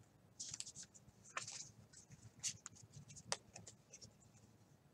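Faint, scattered rustles and soft flicks of paper trading cards handled by hand, a stack of baseball cards slid out of a torn foil pack and flipped through one by one.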